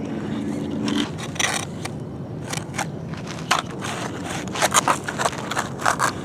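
Toy construction vehicles scraping and crunching through dry dirt and sand: a string of short, irregular gritty scrapes that come thicker near the end. A low steady hum stops about a second in.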